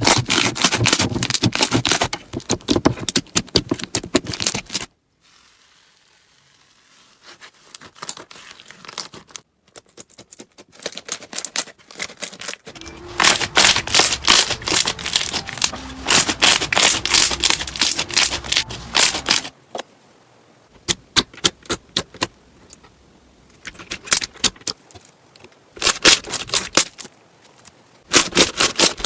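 Slime being squished, giving dense runs of quick crackling clicks. It comes in several short stretches that stop and start abruptly, with quieter gaps between them.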